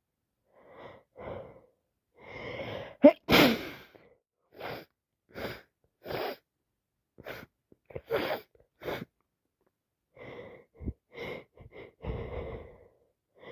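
A woman with a snotty head cold sneezing once, loudly, about three seconds in, after a few breathy catching inhales. A string of short sniffs and breaths follows.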